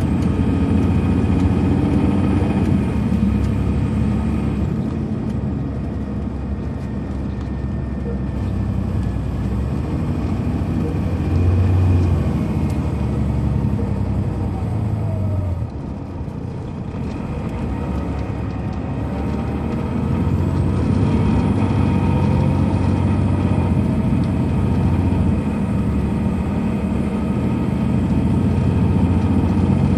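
Detroit Diesel Series 60 engine of a 2003 MCI D4500 coach running, heard on board inside the bus. The level drops suddenly about sixteen seconds in, then builds again from about twenty seconds in.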